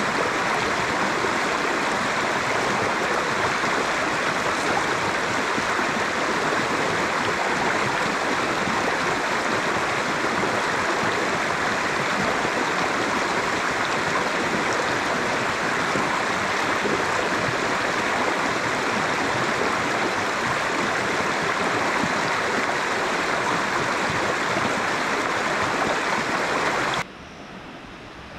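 River water rushing steadily. It cuts off suddenly near the end, leaving a much quieter background.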